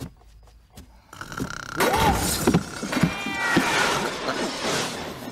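Cartoon cat screeching: a loud, harsh yowl that starts about a second in and goes on until near the end, its pitch sliding up and down.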